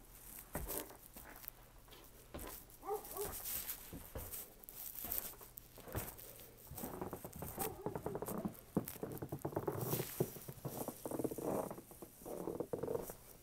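Footsteps crunching through fresh snow, an uneven run of crunches that grows louder and denser about halfway through.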